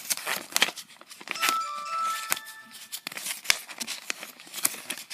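Paper and packaging rustling and crinkling with sharp clicks as a small manual and the box inserts are handled. Between about one and a half and three seconds in, a short chime of a few steady tones sounds over the handling.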